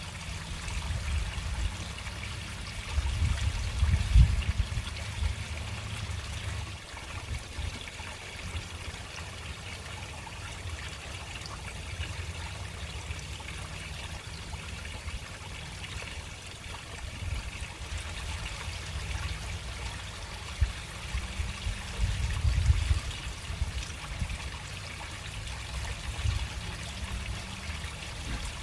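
Water running slowly into a storm drain: a steady trickle and splash, under a low rumble that swells a few seconds in and again about twenty-two seconds in.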